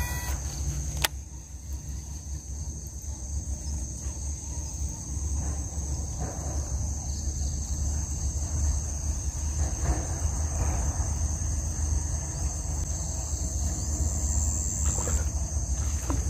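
Wind buffeting the microphone as an uneven low rumble, with a steady high drone of insects behind it. A single sharp click about a second in.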